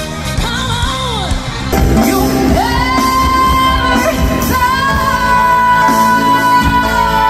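A female pop singer's live concert vocal over her band. After a cut about two seconds in, she belts a high note, rising into it and holding it for several seconds with only a short break.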